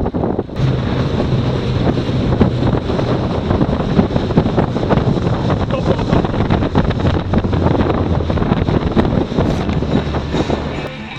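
Wind buffeting the microphone aboard a sailboat at sea, with waves rushing past, loud and gusty throughout.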